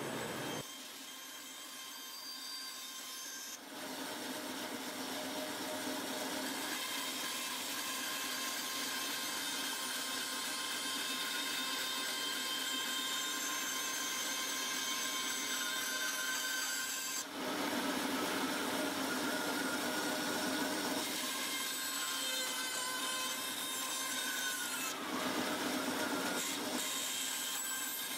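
A woodworking power tool running and working on wood, with steady machine noise and a high whine; its sound changes at about 4, 17 and 25 seconds in as the work is fed or shifted.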